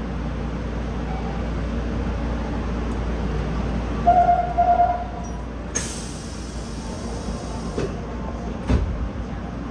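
Nagoya subway 5050-series train standing at the platform with a steady low hum, a quick run of electronic beeps about four seconds in, then a burst of air hissing for about two seconds, and a thump near the end.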